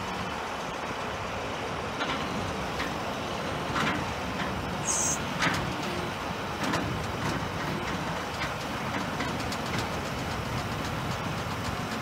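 Heavy diesel engines from a John Deere 8360R tractor and a grain truck running steadily while the grain cart's auger unloads grain into the truck, with a few knocks and a short high-pitched sound about five seconds in.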